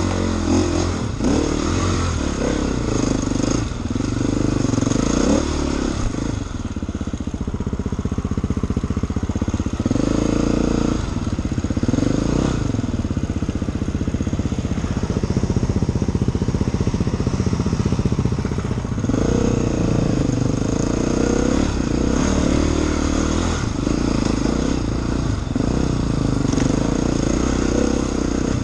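Enduro dirt bike engine riding a rough forest trail, its revs rising and falling over and over as the throttle is worked.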